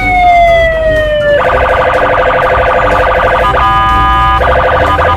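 Police patrol car siren: a slow falling wail that switches about a second and a half in to a fast warble, broken briefly by a short steady tone before the warble starts again.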